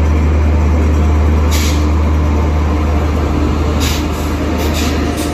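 Indian Railways electric locomotive pulling into the platform alongside: a steady low hum and rumble from the passing locomotive, broken by several short hisses.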